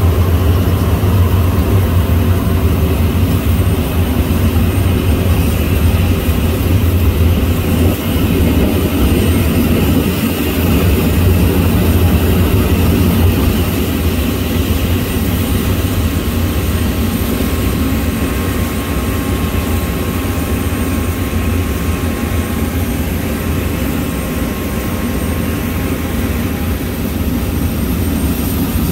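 Boeing 737-800 jet engines running at idle: a steady, loud low rumble with a faint thin whine over it, easing a little about halfway through.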